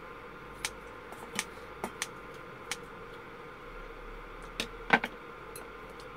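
Kitchen scissors snipping and clicking against a stainless steel pot, several sharp irregular clicks with the loudest near five seconds in, over a steady hum.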